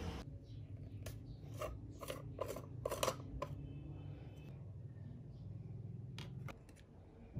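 Screw-top lid of a pink plastic jar of hydrogel eye patches being twisted open: a quick run of sharp plastic clicks over about two and a half seconds, then a few more light clicks near the end as the small plastic spatula is handled.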